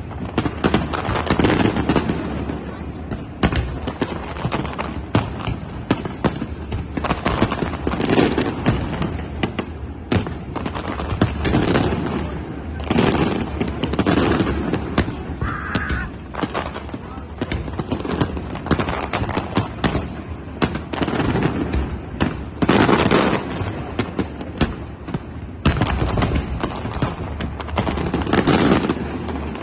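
Fireworks going off without pause: many sharp, irregular bangs and crackles, with louder bursts every few seconds.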